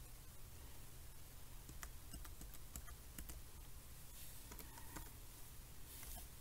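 Lenovo ThinkPad X230 laptop keyboard being typed on: faint, irregular key clicks as backspace deletes a word and a new word is typed letter by letter.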